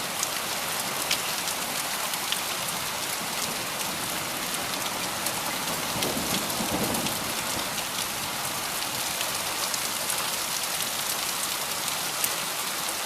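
Heavy rain and hail falling in a steady hiss, with scattered sharp ticks of hailstones striking.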